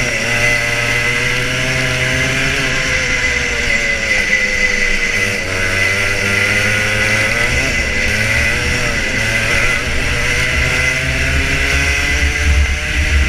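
Rotax Junior Max 125cc two-stroke kart engine heard onboard at racing speed, its revs dropping and climbing again several times through the corners.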